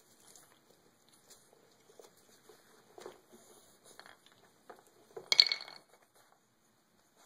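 A puppy gnawing an antler chew wedged in a sneaker: scattered soft clicks and scrapes of teeth on antler and shoe. About five seconds in comes one loud, short clatter with a ringing edge as the hard antler knocks out onto the wooden floor.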